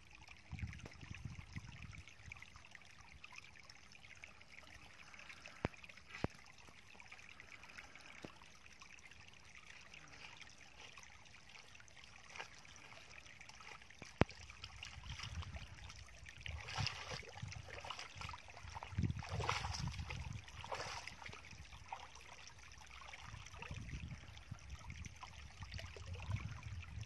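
Shallow stream water trickling steadily. In the second half, louder splashing and thudding steps break in as someone walks through the wet mud and water at its edge.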